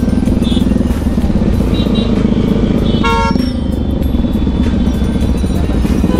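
Bajaj Pulsar NS200's single-cylinder engine running steadily through a loud aftermarket exhaust while riding, with a vehicle horn honking briefly about three seconds in.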